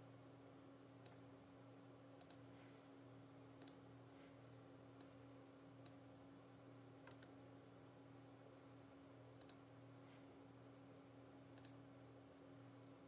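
Near silence with a faint steady hum, broken by about nine small, sharp clicks at irregular intervals of one to two seconds.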